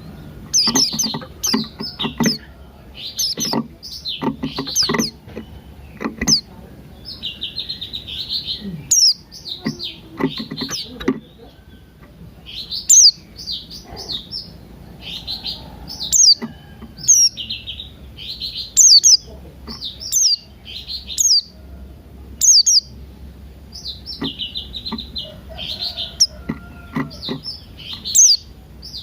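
Pleci buxtoni white-eye singing its long run of quick, high twittering phrases. Lower, coarser calls from another bird come in, mostly in the first six seconds and again near the end.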